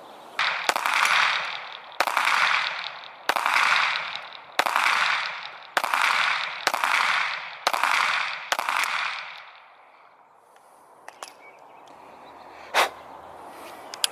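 9mm pistol firing eight shots about a second apart, each echoing off into a long decay. A single sharp crack or knock follows a few seconds after the last shot.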